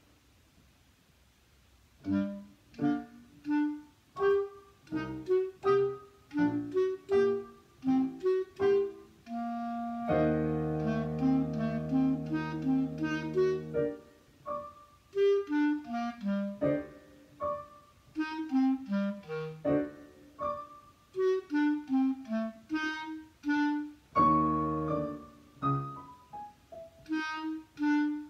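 Clarinet playing a solo piece with digital piano accompaniment, mostly in short detached notes. They come in after about two seconds of quiet, and about ten seconds in they hold a long chord for some four seconds before the detached notes and falling runs resume.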